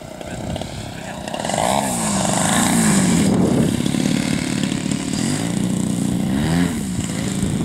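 Radio-controlled aerobatic model plane's engine and propeller running as the plane lands and rolls out on grass, the engine note rising and falling several times. It grows louder about a second and a half in as the plane comes close.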